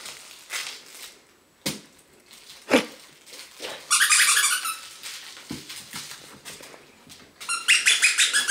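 Squeaky dog toy squeaked in quick runs as small dogs chew and tug at it: a short burst about four seconds in and a longer run of rapid, evenly spaced squeaks near the end. A few sharp knocks come before.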